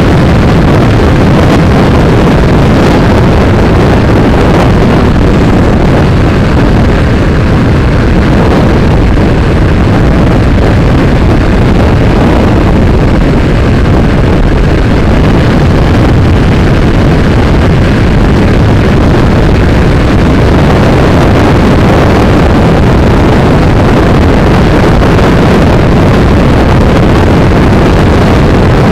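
Steady wind rush over the microphone of a moving motorcycle, mixed with engine and road noise, loud and heaviest in the low end.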